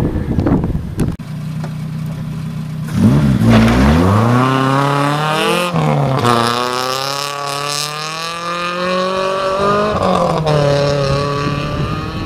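Rally car engine pulling hard on a gravel road, rising in pitch through the gears, with a gear change about halfway through and another near the end. The first seconds are mostly a rushing noise of gravel and tyres.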